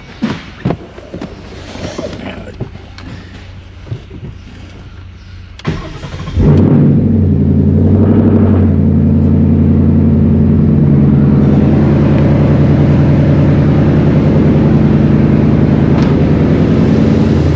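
A few clicks and knocks, then about six seconds in the 2015 Ford Mustang's 5.0 V8 starts and settles into a steady, very noisy idle. The engine is running with a misfire on cylinder 8.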